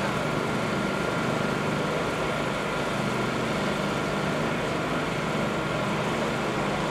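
Steady engine noise with a faint high whine running through it, with no breaks or sudden events.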